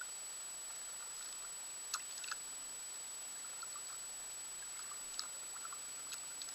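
Kayak paddle strokes: small drips and light splashes of water off the blade, with a few sharp clicks, the sharpest about two seconds in. Under them runs a steady hiss with a thin high whine.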